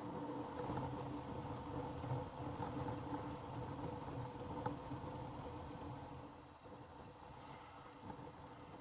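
Faint, steady running of a Ural motorcycle's flat-twin engine with road and wind noise; the sound drops a little about six and a half seconds in.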